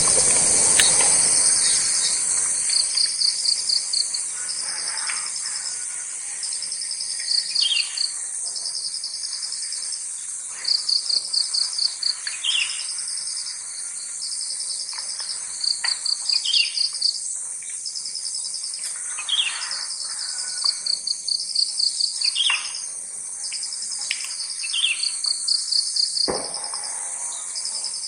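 Sooty-headed bulbul giving short falling call notes every few seconds over a steady chorus of crickets and insects, with regular pulsed cricket trills and a constant high hiss. A brief low thud comes near the end.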